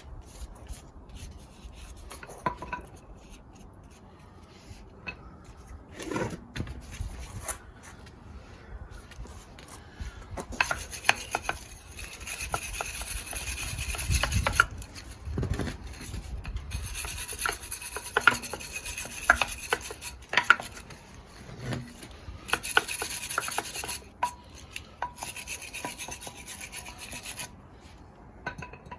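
Wire brush scrubbing corrosion off the wheel hub and wheel mounting surfaces in uneven rasping strokes, with a few sharp knocks in between.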